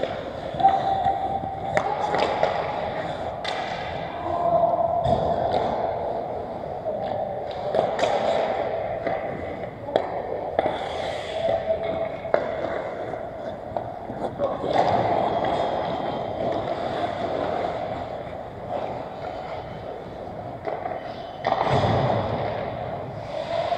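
Ice hockey skates scraping and carving on rink ice, with sharp clacks of sticks and puck now and then.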